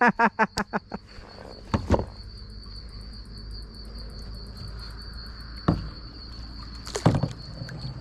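Insects trilling steadily and high in the reeds, with a fast run of about eight croaking pulses from a frog in the first second. A few short knocks come at about two, six and seven seconds in.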